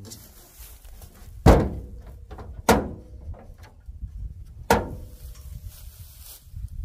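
Three heavy metallic thunks, the second about a second after the first and the third about two seconds later, each leaving a brief ring: the steel hood of a 1980s Chevy K30 truck being banged against a stuck hood latch.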